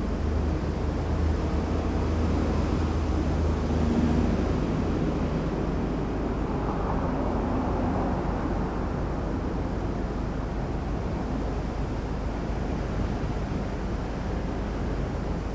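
Steady outdoor background noise, a low rumble with a hiss over it, with a low hum that fades out about four seconds in.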